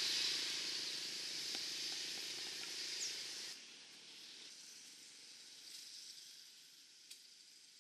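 Steady outdoor hiss of field ambience with no distinct events. It drops sharply about three and a half seconds in and carries on faintly.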